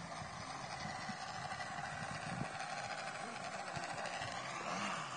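Radio-controlled model airplane's motor running in flight, a steady whine that slowly grows louder as the plane comes closer.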